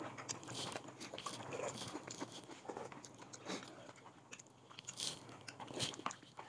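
People eating at a table: chewing and crunching food, with scattered light clicks of chopsticks against ceramic bowls and the pot.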